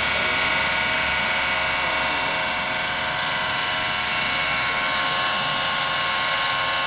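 Large-scale radio-controlled SA-319B Alouette III model helicopter flying low, its drive and rotors running with a steady high whine made of several held tones.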